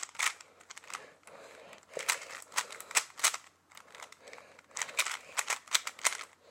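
Rubik's Cube being turned by hand: quick runs of plastic clicks as its layers rotate, with short pauses between runs.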